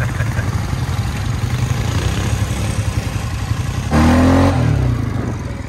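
ATV engines running with a steady low rumble. About four seconds in, a quad's engine close by comes in louder, revving up and down as it climbs a slope.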